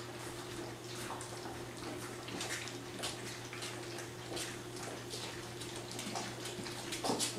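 Three-week-old Labrador retriever puppies lapping and slurping gruel from shallow pans, many small wet smacks overlapping irregularly, over a steady low hum. One louder knock near the end.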